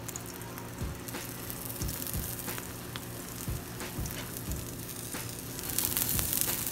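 Beaten egg sizzling in hot oil in a frying pan as an omelette cooks. The sizzle grows louder and brighter near the end.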